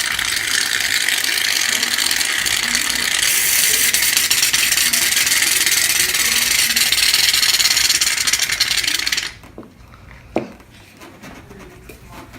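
Aerosol shaving cream can spraying foam in one long, loud, crackling hiss that cuts off suddenly about nine seconds in; the sputter fits a nearly empty can. A few light knocks follow.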